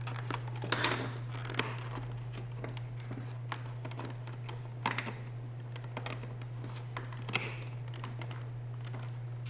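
Light plastic clicks and taps as the door panel's electrical harness connectors are handled and plugged in, scattered irregularly over a steady low hum.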